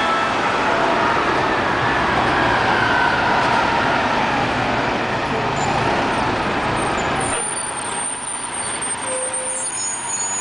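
Orion V transit buses with Detroit Diesel Series 50 engines running as they pull away and turn. The dense engine and road noise eases about seven seconds in, and thin high-pitched tones come in near the end.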